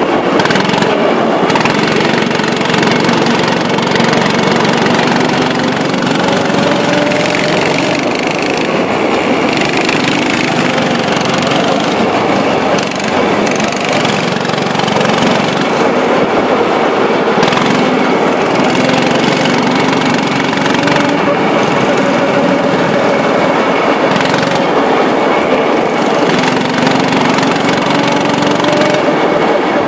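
Go-kart engines running at speed, loud and steady, heard from on board a moving kart, with a faint engine note that rises and falls as the karts speed up and slow for the corners.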